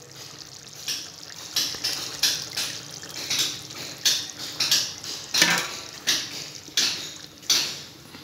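Wooden spatula stirring a liquid chicken curry in a metal pan, in a steady run of short wet scraping strokes about once every two-thirds of a second, as the thick first coconut milk is stirred in.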